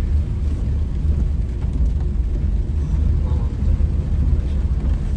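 Strong wind buffeting the microphone: a loud, steady, gusty low rumble.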